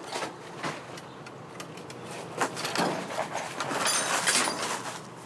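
Items being rummaged through in a dumpster: a couple of short knocks, then from about halfway in a longer spell of rustling and clattering.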